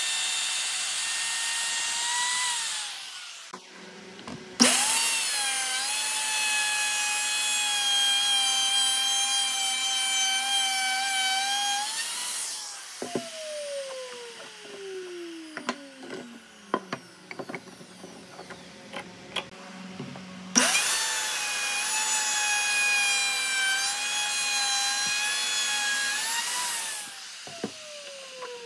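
Electric router running with a high-pitched whine while cutting slots in pine workpieces. It shuts off three times, each time spinning down with a long falling pitch, and starts up abruptly about 5 s and about 21 s in. Between the runs there are sharp knocks of wooden pieces being handled on the bench.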